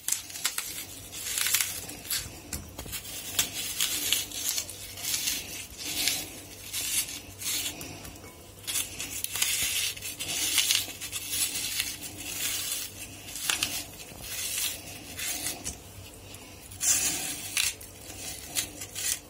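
Metal dolma corer scraping out the inside of a raw onion in repeated, uneven strokes.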